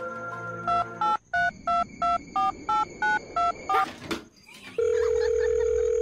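Telephone keypad dialing tones, about eleven short two-note beeps at roughly three a second. A steady phone tone follows for about a second and a half.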